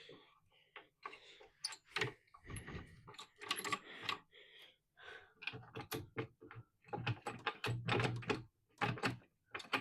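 Irregular clatter of clicks, knocks and thunks as objects and equipment are handled and moved around a workshop.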